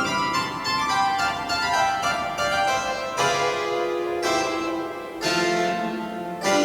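Pipe organ playing: a run of quick notes, then full chords sounded about once a second, each with a bright attack and held tones ringing in a reverberant church.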